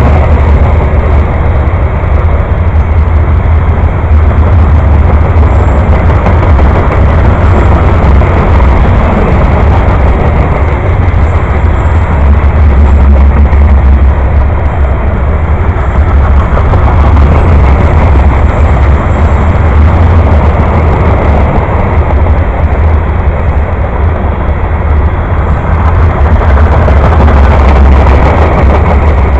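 Long freight train of covered hopper cars rolling past close by: a loud, steady rumble of steel wheels on the rails.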